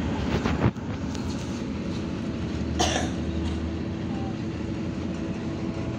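Interior noise of a MAN Lion's Classic city bus in service: a steady low drone of engine and running gear, with a faint steady whine coming in about halfway. A brief knock comes about half a second in, and a short sharp burst of noise near the middle.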